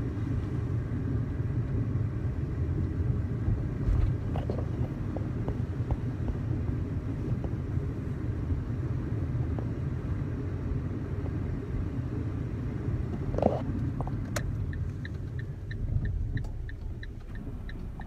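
Steady low road-and-engine rumble heard from inside a moving car, with a couple of soft knocks. Near the end a regular ticking starts, about three ticks a second.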